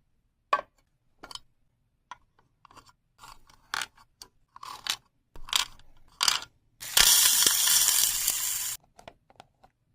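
Slime being handled, making a series of short sticky clicks and pops. About seven seconds in comes a louder, dense crackling hiss that lasts nearly two seconds, followed by a few faint pops.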